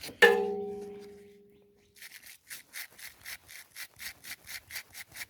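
A metal part knocked, ringing briefly and dying away, then brisk back-and-forth scrubbing at about four strokes a second as a mower part is cleaned.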